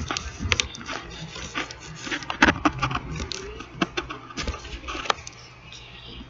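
Handling noise: a run of irregular clicks and knocks with rubbing and scraping between them, the loudest knocks about two and a half seconds in and again around five seconds in.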